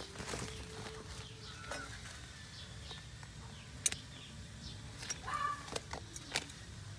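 Scattered sharp clicks and crinkles from a woven plastic sack being handled, with two short chirps, one near two seconds in and one near five seconds in.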